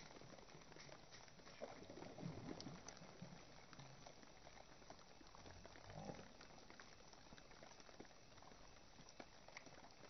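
Faint bubbling and sloshing of shallow water, a little louder around two seconds and six seconds in.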